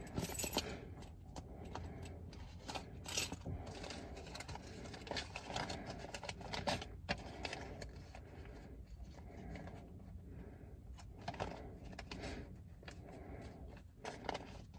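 Faint, scattered clicks and rustles of a keyring and small objects being handled.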